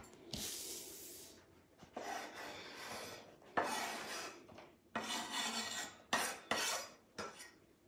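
Diced bell pepper being scraped off a cutting board onto a paper plate: several rasping scrapes, each about a second long, with short pauses between them.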